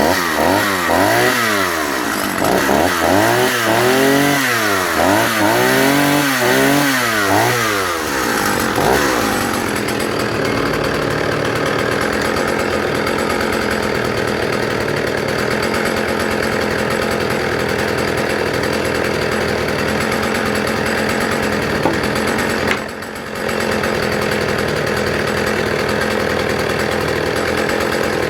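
Partner F55 55cc two-stroke chainsaw revved up and down in quick blips for about eight seconds, then held at full throttle as it cuts through a small log, the note steady under load apart from a brief dip about two-thirds of the way through.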